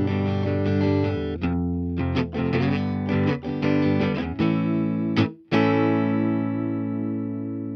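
G&L S-500 electric guitar played through a Line 6 POD HD500 modelling a Fender Blackface amp with a Tube Screamer overdrive. Full chords are strummed, then come a run of short choppy stabs, and about five and a half seconds in a chord is left ringing and slowly fading.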